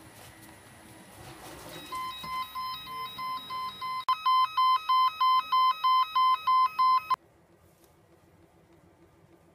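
Electronic safety alarm of an Orient Giken "Shake It Easy" liquid mixer/shaker, tripped by a door opened during operation, which also stops the machine. About two seconds in a steady electronic tone starts. From about four seconds in it beeps loudly about three times a second, then cuts off suddenly about seven seconds in.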